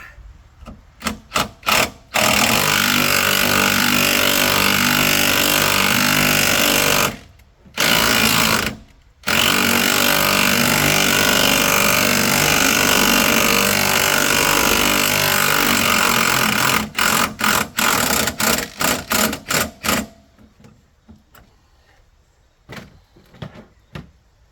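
Impact wrench hammering on a top strut-mount nut of a front strut: a few short blips, then two long runs of several seconds, then a string of short bursts, as the nut is loosened.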